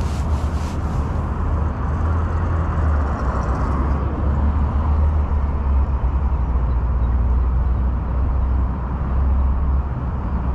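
Wind buffeting the microphone: a loud, steady low rumble that wavers in strength.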